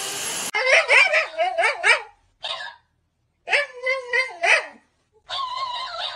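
Shiba Inu barking and yowling in short, pitched bouts, four in a row with brief silences between them. A vacuum cleaner's steady running noise cuts off in the first half-second.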